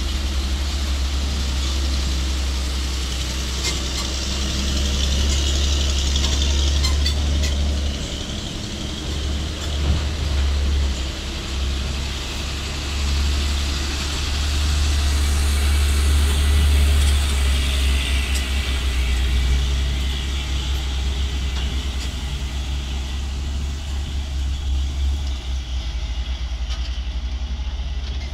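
A heavy dump truck loaded with sand drives slowly past at close range, its engine running low and steady. It is loudest about halfway through as the cab goes by, then fades a little as it pulls away.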